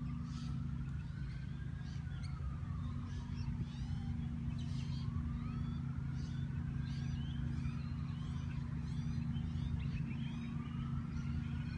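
Birds chirping over a steady low hum. Throughout, a siren wails slowly up and down, about once every five seconds.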